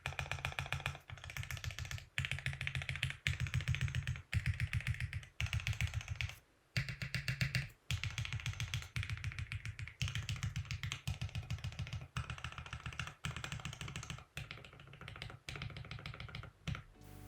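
Typing on a mechanical keyboard fitted with PBT dye-sub keycaps: quick runs of key clicks with short pauses. The sound is typical of PBT caps, poppy and lower in pitch than ABS caps.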